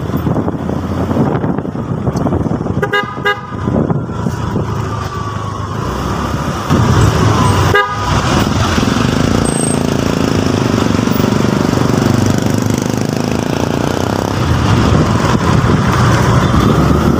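SYM K-Blade 125 motorcycle engine running with road and wind noise while riding in traffic. Two short horn toots sound, one about three seconds in and another just before the eight-second mark.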